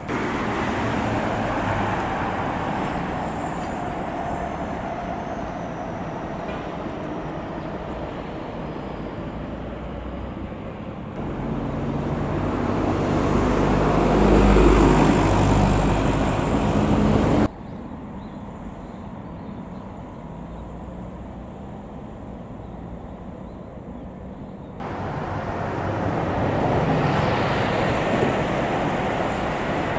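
Tsukuba Express electric commuter trains running past on a concrete viaduct, a steady rumble of wheels on rail that swells as a train passes close, loudest about halfway through. The sound jumps abruptly three times between separate passes.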